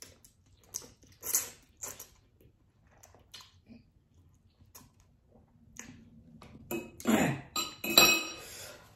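Mouth sounds of eating noodles: soft scattered smacks and clicks, then near the end a few louder sounds, one of them sliding down in pitch.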